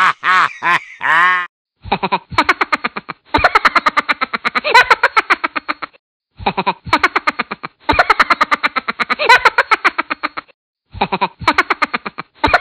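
Rapid, pulsing laughter, about five bursts a second, in several long bouts broken by short silences.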